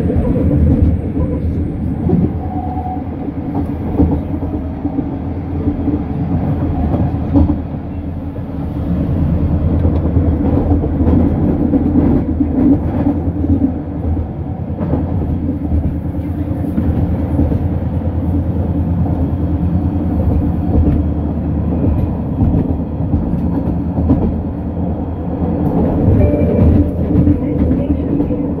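SkyTrain car running along the track, heard from inside the car: a steady low rumble of the train in motion with a few faint clicks.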